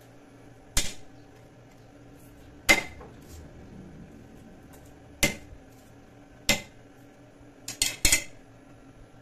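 Steel cleaver striking a thick wooden chopping block as garlic is cut: single sharp knocks a second or two apart, then three quick blows near the end, some with a short metallic ring from the blade.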